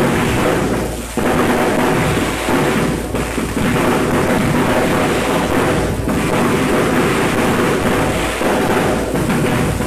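Aerial fireworks bursting and crackling overhead in quick succession: a loud, continuous rumble with hardly a break between bursts.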